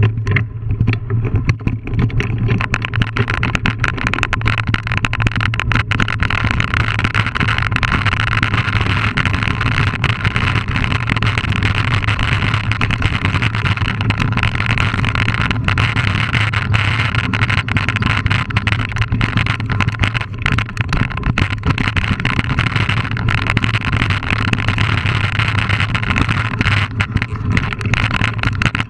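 Wind buffeting the microphone of a mountain biker's camera while the bike rolls over a rocky dirt trail. The tyres crunch on dirt and stones, and the bike rattles with frequent small clicks and knocks.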